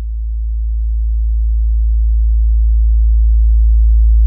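Deep, steady synthesized low drone, a single sustained bass tone that slowly swells louder.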